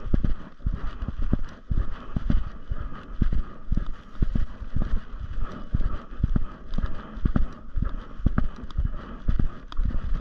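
Walking footsteps on a dirt forest trail, a steady rhythm of dull thumps about two a second.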